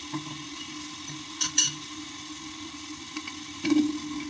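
Chicken mince sizzling in a hot aluminium pot, with two sharp clinks about a second and a half in. Near the end, a wooden spoon starts stirring and scraping the mince and spices around the pot.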